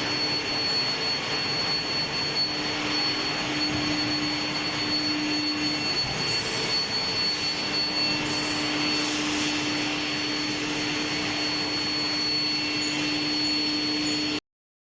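Steel-bar induction quenching line running: a steady rushing noise with a thin high-pitched whine and a lower hum over it. It cuts off abruptly near the end.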